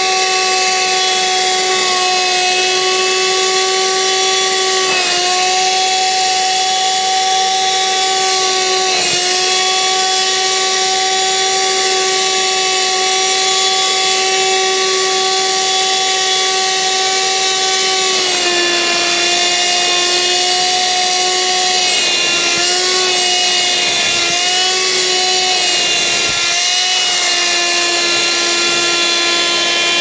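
KEYNICE KN-108W 80 W 12 V handheld wet-and-dry car vacuum running steadily with its nozzle on a soaked sponge, sucking up water: a motor whine over a rush of air. The pitch dips briefly twice, settles a little lower just past halfway, then wavers a few times.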